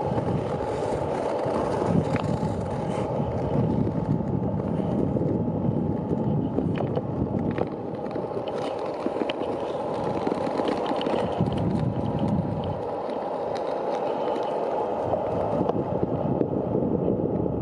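A steady, rough rumbling scrape of something travelling over candled, breaking-up lake ice, with scattered sharp ticks and wind on the microphone.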